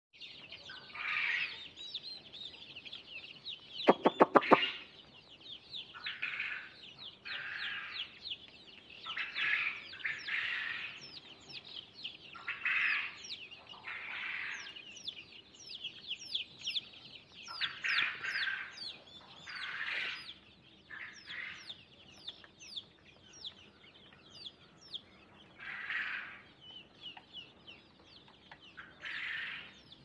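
A flock of young chicks peeping constantly, many short high calls that drop in pitch, with louder spells of calling now and then. A quick burst of four or five sharp clicks about four seconds in.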